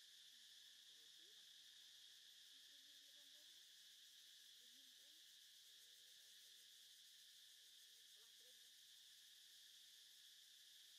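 Faint, steady high-pitched chirring of insects.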